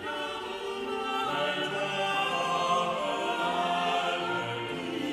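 Background choral music: a choir singing long held notes.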